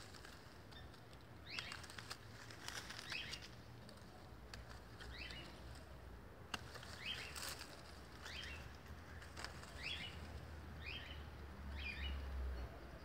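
Hand pruning shears snip a thin jabuticaba shoot with one sharp click about six and a half seconds in. A bird calls over and over with short rising notes, roughly once a second, all faint.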